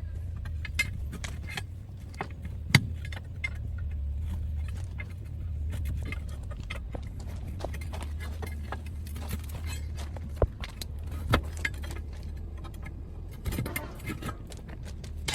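Scattered metal clinks and knocks, as of tools handled during heavy tyre repair work, over a steady low hum.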